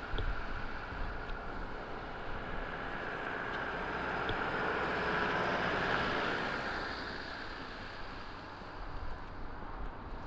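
A vehicle passing by on a snowy street: a steady rush of tyre and engine noise swells to a peak about six seconds in, then fades away.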